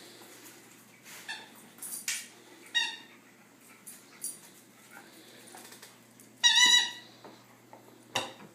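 A dog's rubber squeaky toy squeaking as the dog bites it: a few short squeaks, then one long, loud squeak about six and a half seconds in, with soft knocks and rustles of play between.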